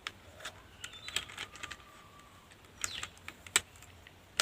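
Scattered light plastic clicks and taps of a computer keyboard, mouse and USB cables being handled and set down, with one sharper knock about three and a half seconds in.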